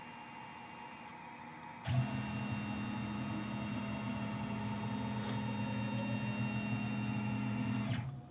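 Stepper motor driving a CNC rotary axis, humming at a steady speed. It starts abruptly about two seconds in, runs evenly for about six seconds and stops sharply.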